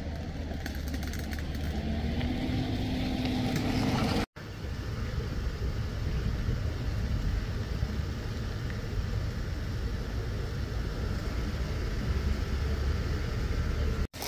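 Steady low rumble of road traffic, with a passing vehicle's engine rising in pitch in the first few seconds. The sound drops out briefly twice, where shots are cut together.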